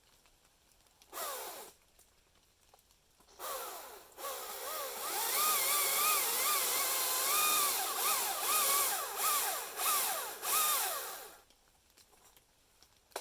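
Electric power tool motor: a short trigger burst about a second in that winds down in pitch, then a run of about eight seconds with its pitch wavering up and down under load before cutting off.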